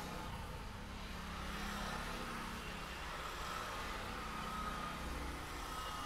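Faint steady rumble of road traffic in the background.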